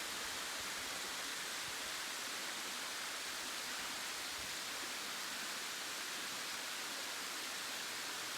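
Kondalilla Falls, a waterfall, rushing with a steady, even hiss of falling water.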